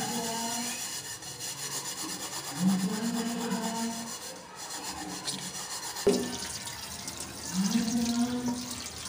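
Steel wool scrubbing the base of an aluminium pot coated with cleaning paste, a continuous scratchy rub, with one sharp knock about six seconds in.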